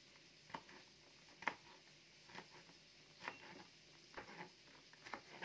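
Near silence, broken by faint, short taps about once a second.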